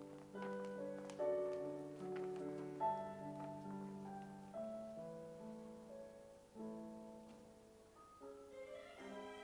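Slow instrumental music: piano chords and notes held and changing every second or so, with more notes coming in near the end.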